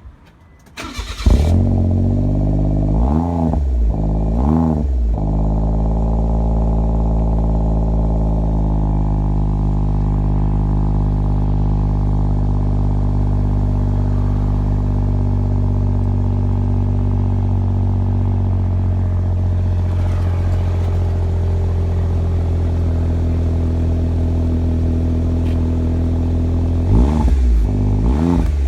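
Suzuki Cervo kei car engine heard at the exhaust, which carries a honeycomb flange silencer under test. The engine starts about a second in and is revved twice. It settles into a steady idle, then is revved twice more near the end.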